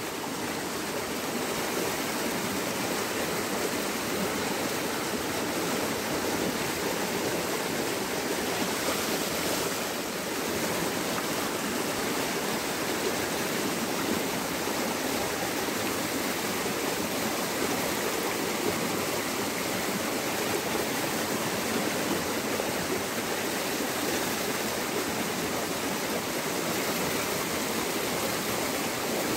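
Small fast-flowing stream rushing over a low step in its bed: a steady rush of churning white water.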